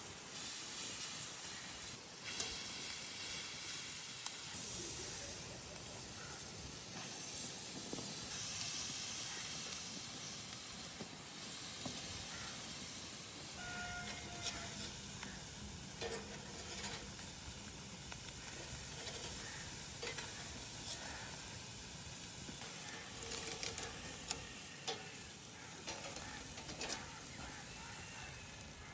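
Food sizzling and frying in hot oil in a cooking pot, a steady hiss with scattered clicks and scrapes of stirring.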